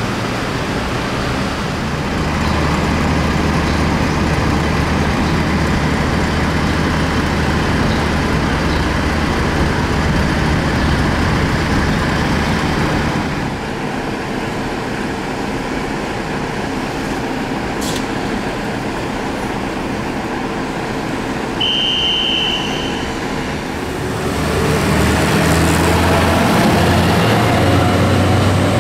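Heavy trucks' engines running amid steady road traffic noise. Near the end a truck passes close by, and its engine hum grows louder.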